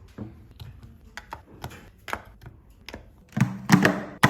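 Irregular sharp clicks and taps of small hard parts being handled, growing busier and louder in the last second.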